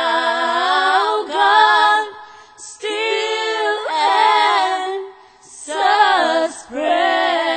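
Four-voice a cappella gospel group of women singing long, held harmonised notes with vibrato. The sound breaks off in two short pauses, a little after two and five seconds in.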